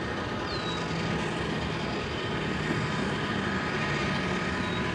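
Steady distant engine drone with a low, even hum.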